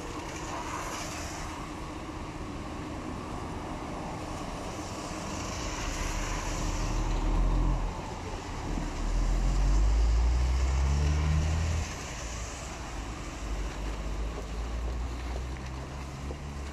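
Motor traffic on a rain-soaked street: tyres swish on the wet road, and a strong low engine rumble swells twice in the middle as vehicles pass close by.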